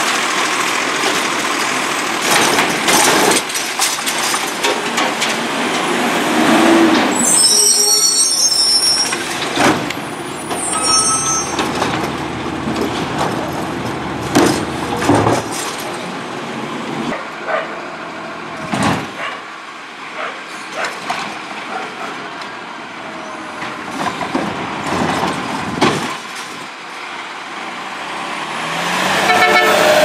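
Heil Python automated side-loader garbage truck working: the lift arm cycles carts and the diesel engine runs, with several sharp bursts mid-way. Near the end the engine rises as the truck pulls away, giving its distinctive take-off sound, which comes from the exhaust pipe.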